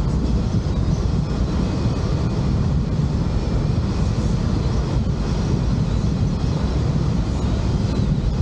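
Steady rumble of wind and road noise from a vehicle driving along, heaviest in the low end and without sudden changes.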